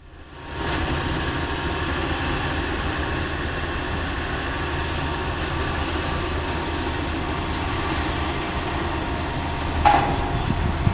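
Diesel engines of truck-mounted cranes and an earth compactor running steadily at a distance, a low even rumble. A single short sharp knock stands out near the end.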